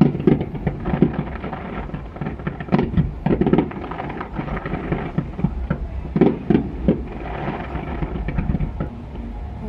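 Fireworks bursting at a distance: irregular booms and bangs, some in quick clusters, echoing over a steady low rumble.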